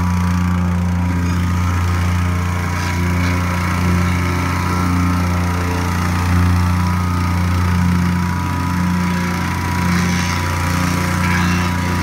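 Bomag plate compactor's small petrol engine running steadily while its vibrating plate compacts loose dirt, a constant low hum.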